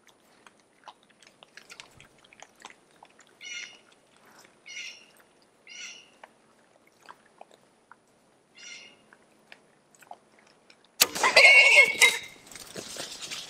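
Feral hogs feeding at a corn feeder: soft crunching clicks and a few short squeals. About two seconds before the end there is a sharp crack from the bow shot, then a loud second of squealing and scrambling as the hogs bolt.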